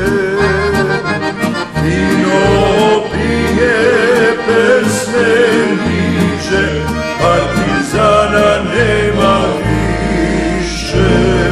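Instrumental passage of a Serbian song led by accordion, its melody held and wavering, over a bass line stepping from note to note and regular beats.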